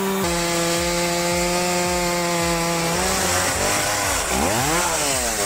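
Chainsaw engine running at high revs. Its pitch holds steady, then wavers, and near the end drops sharply and climbs back.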